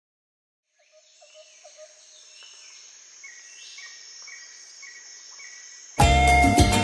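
Faint outdoor ambience of chirping birds and a steady insect buzz fading in after a moment of silence, then loud Latin-style music with a strong beat cutting in suddenly near the end.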